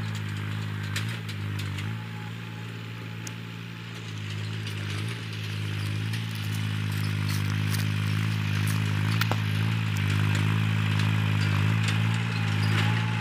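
Eicher 333 tractor's three-cylinder diesel engine running steadily under load while pulling a tine cultivator through dry soil, getting louder from about four seconds in as it approaches, with occasional light clicks and rattles.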